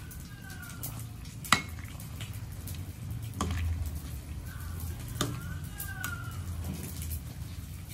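Metal ladle stirring greens and luffa through a stainless steel soup pot, with a few sharp clinks of the ladle against the pot: the loudest about 1.5 seconds in, another about 5 seconds in.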